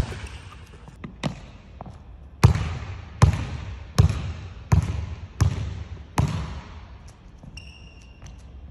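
Basketball dribbled on a hardwood gym floor: about eight hard bounces, most of them three-quarters of a second apart, each ringing out in the large hall. The bounces stop about two-thirds of the way through, and a few faint short squeaks follow near the end.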